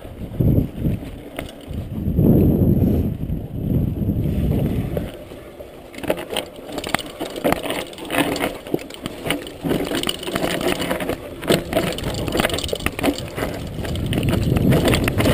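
A mountain bike rolling down a trail. In the first few seconds there is mostly low wind rush on the microphone. From about six seconds in, the bike rattles and clatters as its tyres crunch over loose rocks and stones, with many sharp knocks.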